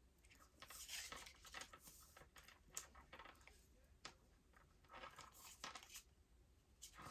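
Faint rustling and crinkling of tarot cards being handled, in irregular bursts with a few light clicks.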